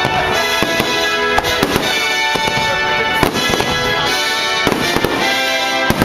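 A fireworks display going off, with an irregular run of sharp bangs, several a second, over loud patriotic show music by American composers.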